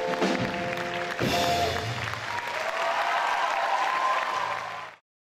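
A blues band of saxophone, electric guitars, bass and drums holding its final chord, ended by a sharp drum hit about a second in, followed by audience applause that cuts off suddenly near the end.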